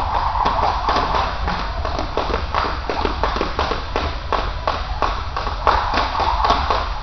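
A jump rope slapping a tiled gym floor as a man skips, with his feet landing, in a quick steady rhythm of taps. Music plays in the background.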